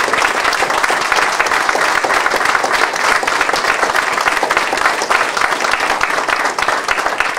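A small crowd applauding steadily: a dense patter of many people's hand claps.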